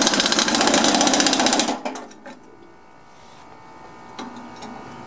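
Pneumatic impact wrench hammering rapidly for a little under two seconds as it runs the mower blade bolt tight, then stopping; a few light clicks follow.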